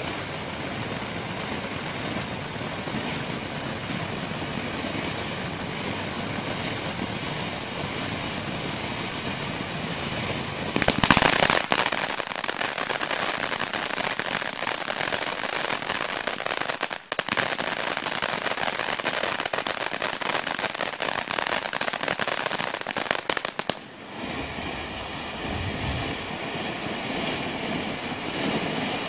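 BA519 Hot Roll 200-gram firework fountain spraying sparks with a steady hiss. About eleven seconds in it flares louder and breaks into dense crackling for roughly a dozen seconds, then eases back to a softer hiss near the end.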